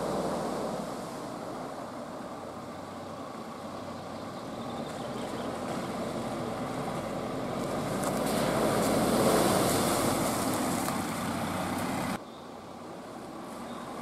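GAZ Sobol 4x4 van driving through muddy puddles, its engine running under the splash and slosh of water thrown from the wheels, loudest about nine seconds in. The sound drops suddenly to a quieter engine and tyre noise about twelve seconds in.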